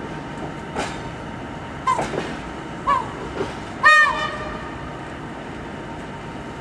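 Track-laying work train of flat wagons loaded with track panels rolling slowly past with a steady rumble. A short click comes just under a second in, and short high-pitched squeals come about two, three and four seconds in, the last the loudest.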